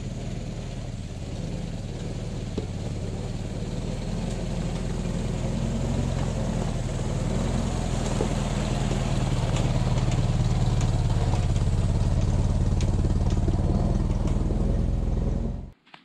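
Ford Model T's four-cylinder engine running on the move, growing steadily louder, then cut off suddenly near the end.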